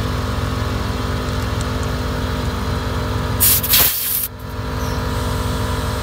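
1998 Chevy C1500 pickup idling while its onboard Viair 450 12 V air compressor runs, filling the portable air tank: a steady mechanical hum. About three and a half seconds in there is a short, loud hiss lasting under a second.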